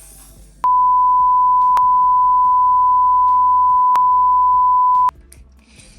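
A single steady pure beep tone, starting under a second in and cutting off sharply after about four and a half seconds: a censor bleep laid over the angry speaker's words.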